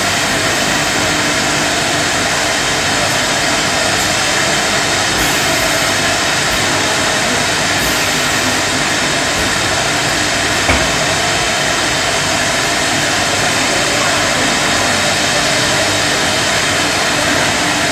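Jam jar production line machinery running, with conveyors and a filling machine making a steady, even noise. One short knock about eleven seconds in.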